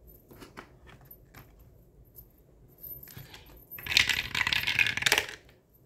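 Scratch-off circle on a paper savings-challenge card being scratched off in a quick burst of about a second and a half, after a few light handling clicks.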